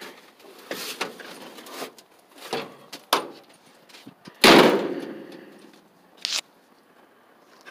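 Knocks and clunks from an old pickup's steel cab as someone climbs out through the door. About four and a half seconds in comes one loud metal clang that rings on for about a second, then a short sharp knock.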